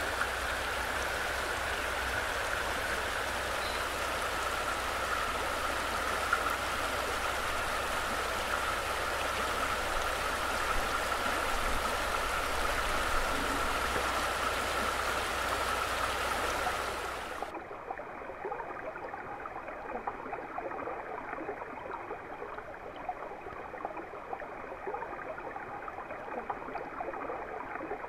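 Shallow, rocky river rushing and splashing over stones in a steady, full sound. About 17 seconds in it changes abruptly to a quieter, muffled water sound with the high end cut away, as heard from below the surface.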